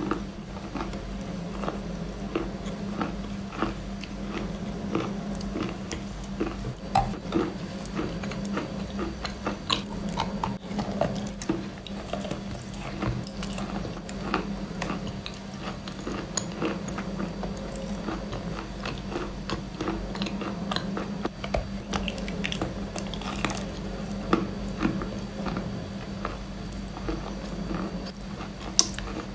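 Close-miked chewing and biting of a cream-coated cookie: many short, irregular crunchy clicks and wet mouth sounds, over a steady low hum.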